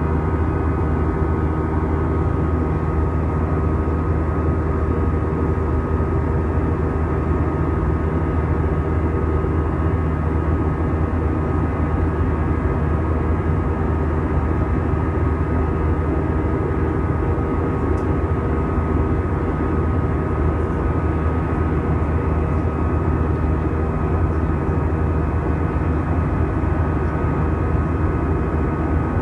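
Steady cabin noise of an Airbus A320 in flight, heard inside the cabin: an even rush of air with the constant hum of the wing-mounted jet engines.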